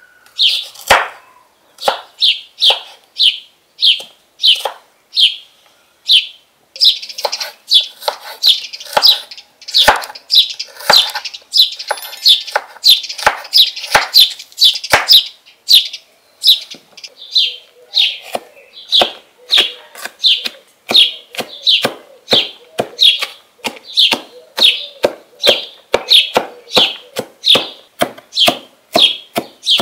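A knife cutting onion on a wooden cutting board: crisp, regular strokes at about two a second, quicker in the middle stretch. Near the end the onion is minced with a curved rocking chopper.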